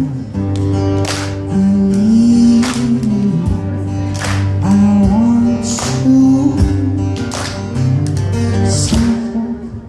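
Live acoustic rock performance: strummed acoustic guitar over bass, with a sung melody, the song coming to its close at the end.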